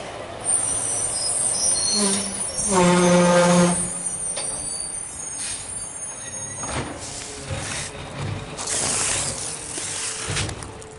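Peterbilt 520 garbage truck with a McNeilus ZR rear-loader body moving off, its air system hissing from about half a second in. A short pitched tone comes at about two seconds and a louder one-second tone just after, the loudest sound here. Another burst of air hiss comes near the end.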